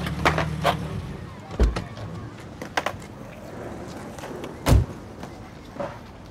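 Scattered sharp clacks and knocks with two heavy thumps, the louder one near the middle, after a low hum that stops about a second in.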